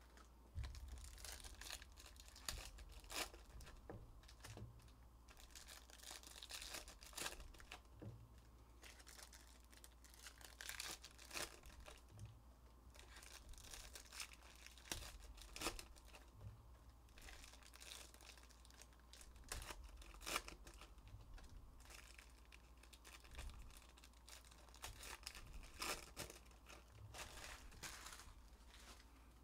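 Foil trading-card pack wrappers being torn open and crinkled, with cards handled and stacked between tears; faint, irregular crackling.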